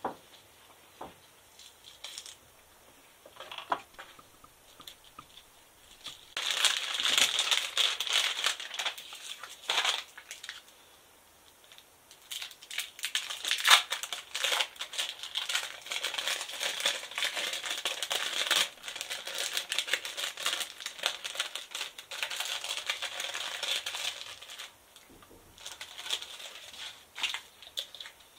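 Thin plastic wrapping crinkling and crackling in the hands as it is peeled off and handled. It comes in two long stretches of rapid crackles with a short pause between.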